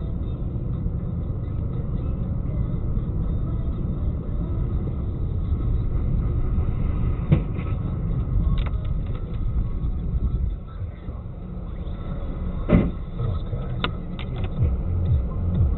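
Steady low rumble of a car on the move, heard from inside the vehicle, with a few short sharp knocks, one about halfway through and a louder one later.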